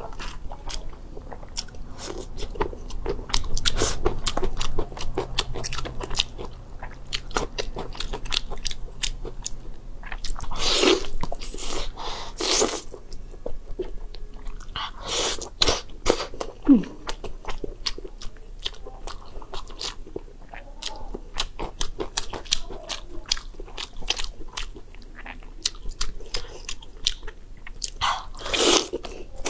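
Close-miked chewing and biting of a braised lamb leg: wet mouth clicks, smacks and tearing bites of meat, coming in quick irregular bursts.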